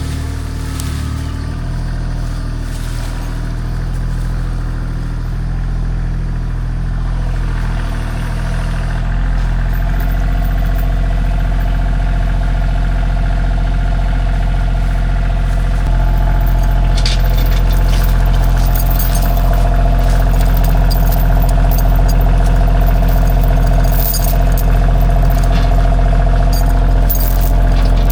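A vehicle engine running steadily, getting louder about nine seconds in and again about sixteen seconds in, with scattered sharp crackles and snaps over the last ten seconds.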